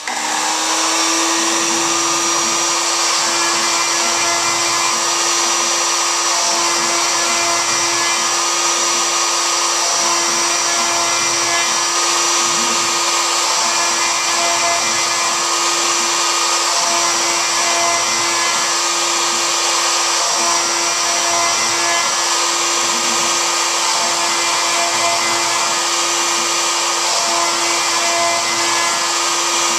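Router spindle on a homebuilt CNC router switched on and running steadily at high speed, with a constant hum over a high whine.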